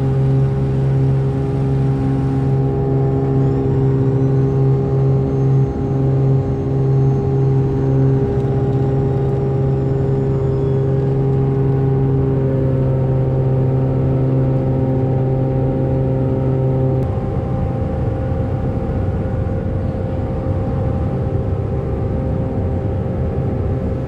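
Lake Renegade amphibian's piston engine and pusher propeller running steadily at high power through the takeoff from a beach and the climb-out. About 17 seconds in the even, tonal note changes to a rougher, slightly quieter sound.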